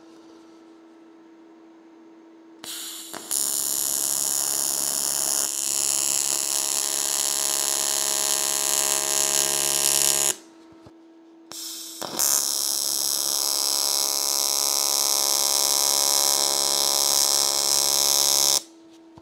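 TIG welding arc buzzing steadily on aluminium, AC current, as the corners of a small folded aluminium housing are welded. It comes in two long runs: the first strikes about three seconds in and lasts about seven seconds, and the second strikes a second or so after the first stops and cuts off shortly before the end.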